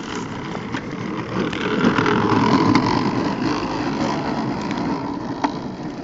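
Hard plastic wheels of a toy pedal tractor rolling fast over concrete while it is towed behind a bicycle: a rough, steady rumble that grows louder about two seconds in.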